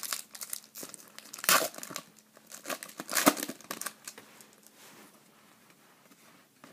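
Foil wrapper of a baseball card pack being torn open and crinkled, with the loudest crinkles about one and a half seconds in and again just after three seconds. The crinkling dies down about four and a half seconds in.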